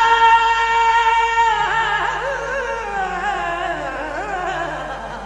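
Qawwali singing: a solo voice holds a high note for about a second and a half, then slides down through wavering, ornamented runs.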